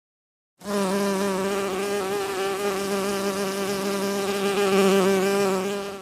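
A flying insect's wings buzzing: one steady, low, slightly wavering drone that starts about half a second in.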